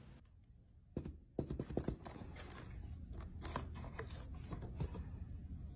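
Irregular scratching and rustling on cardboard with quick clicks and taps, a small pet pawing and moving inside a cardboard box. A single tap comes about a second in, then a run of scratches, busiest just after it.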